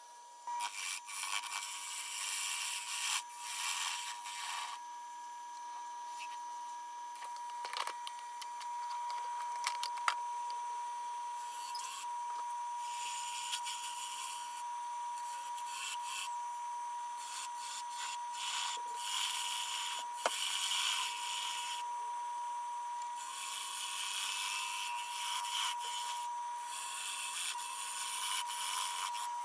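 A bowl gouge cuts the inside of a wet-wood bowl spinning on a wood lathe, a shearing hiss that comes in passes of a few seconds each with short breaks between, over a steady high whine. The gouge peels off shavings rather than dust.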